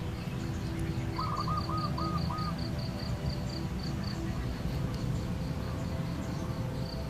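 Outdoor morning bird and insect ambience: a fast series of short, high chirps that stops about four seconds in and resumes near the end, and a bird's quick run of five lower notes about a second in, over a low steady rumble.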